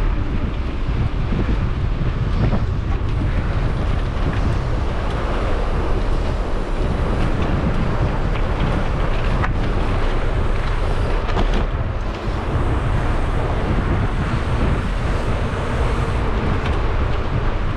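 Wind buffeting the camera microphone, a steady low rumble with a few faint clicks and rattles.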